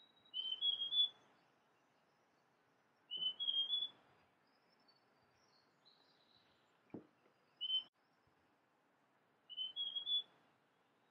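Male large niltava (Niltava grandis) singing: short phrases of three clear whistled notes, each a step higher in pitch than the last, repeated about every three seconds, with one phrase cut to a single note.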